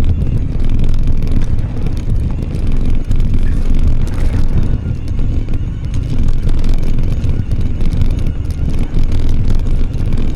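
Mountain bike ridden uphill on a rough trail: a steady low rumble of tyre and wind noise on the microphone, with frequent small rattles and clicks from the bike.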